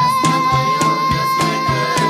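Music with a steady beat of about three strokes a second under one long held melody note, likely sung.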